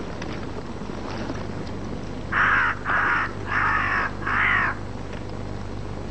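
A bird cawing four times in quick succession, each call about half a second long.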